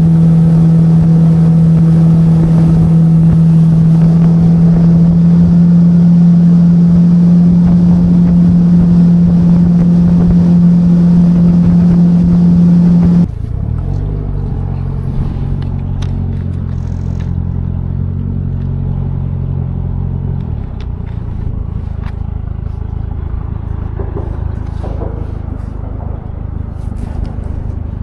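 Engine running loud and steady, then abruptly throttled back about halfway through to a lower, quieter run. That lower tone stops a few seconds later, leaving a low rumble.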